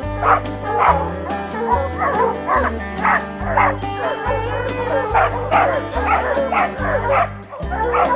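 Background music with a steady bass line and beat, with hounds barking and yipping over it.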